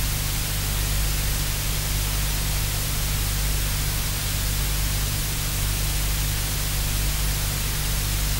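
Steady hiss like static, with a low hum underneath; nothing stands out from it.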